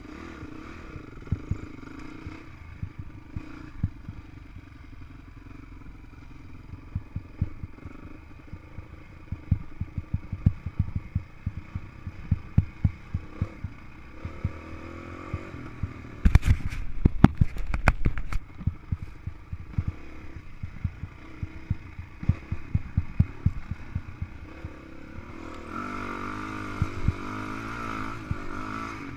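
Honda CRF450X single-cylinder four-stroke dirt bike engine running at part throttle on rough single track, under many sharp clattering knocks from the bike jolting over the trail, thickest about halfway through. Near the end the engine gets louder and its pitch wavers as the throttle is worked.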